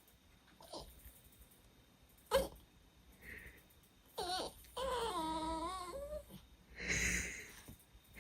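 Dog whining: a short cry, then a longer wavering whine about five seconds in. It is a plea to be let up, and is followed by a breathy huff. A sharp knock comes a couple of seconds in.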